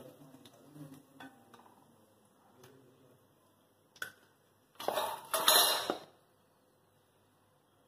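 Steel perforated skimmer clinking and scraping against a steel plate and kadai as fried chicken pieces are tipped off it, with a few light clicks and then one loud clatter lasting about a second, a little past the middle.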